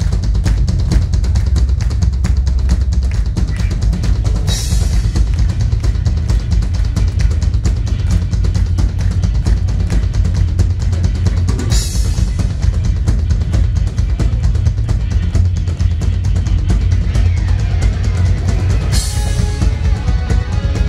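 Rock band playing an instrumental passage live. A drum kit keeps up a fast, driving bass-drum and snare pattern under electric guitars and bass, with a crash cymbal about every seven seconds. Held guitar notes come in near the end.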